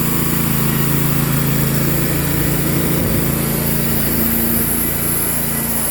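Predator small gasoline engine on a bandsaw sawmill running steadily under cutting load as the blade goes through a cedar log.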